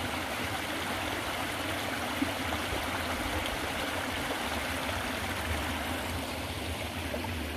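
A stream of running water, a steady even rush that holds unchanged throughout.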